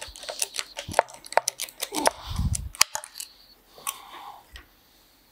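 Hand tools working at an injector on a Hyundai D4CB diesel cylinder head: irregular sharp metal clicks and taps, with one dull thump about two and a half seconds in. The clicking stops about four seconds in.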